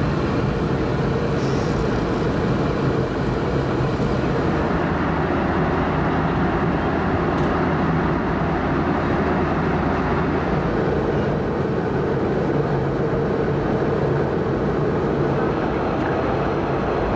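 Steady cabin noise inside a Boeing 717 airliner in flight: the rush of air and the drone of its rear-mounted Rolls-Royce BR715 turbofans, with a low steady hum underneath.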